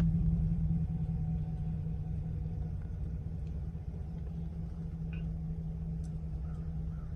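Vehicle engine idling, heard from inside the vehicle as a steady low hum and rumble.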